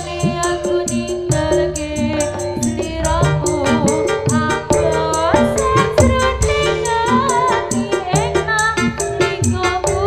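Live jaranan music: a wavering lead melody over hand-drum strokes and sustained pitched tones, driven by a quick, steady high clicking beat about five times a second.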